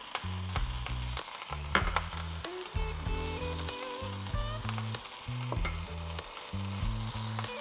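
Portobello mushroom caps sizzling steadily in a frying pan on high heat, with a sharp knock about two seconds in.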